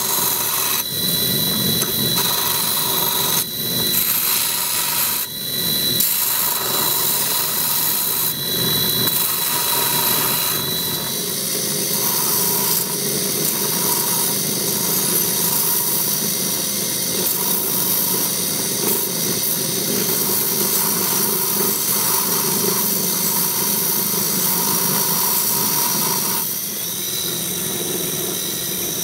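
A lathe spinning a sanding disc in a drill chuck, with a small metal part of a Stanley 110 block plane pressed against the abrasive: a steady motor whine under a rasping grind that breaks off briefly several times in the first ten seconds as the part is lifted and repositioned. Near the end the sound changes as a buffing wheel takes over.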